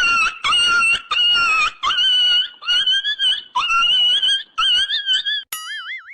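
Comic sound effect: a rapid run of short, high-pitched squeals, about two a second. Near the end it gives way to a brief wavering, warbling whistle tone.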